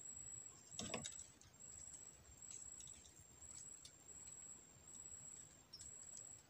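Near silence, broken by a knock about a second in and a few soft scattered clicks from a fishing rod and spinning reel being handled. A faint high steady tone keeps breaking off and coming back.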